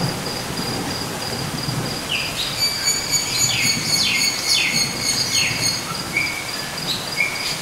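An added nature-sound track: a steady high insect trill, with a run of short falling bird-like chirps over a soft background hiss.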